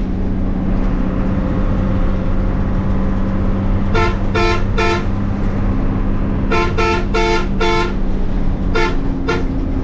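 Bus horn tooting in short repeated blasts: three quick toots about four seconds in, a run of four or five a couple of seconds later, and two more near the end. Under them runs the steady drone of the moving bus's engine and road noise.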